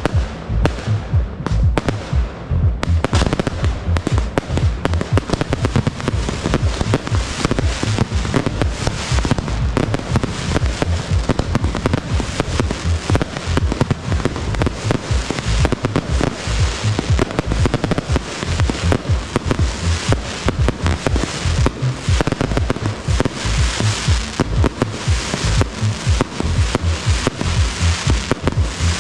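Fireworks display: a rapid, unbroken barrage of aerial shell bursts and crackling, many reports a second, with music playing underneath.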